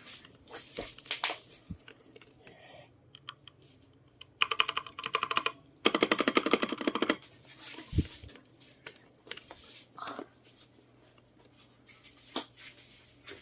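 Mechanical keyboard switches clicking as keys are pressed, with single scattered presses and two fast runs of clicking a few seconds in. The clicking sound is called so satisfying.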